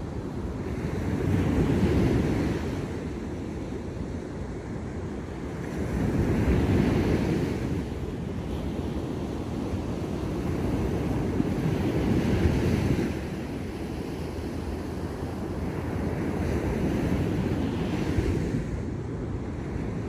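Surf breaking on a beach: waves wash in and break about every five seconds, four times over, with a steady rush of water between them.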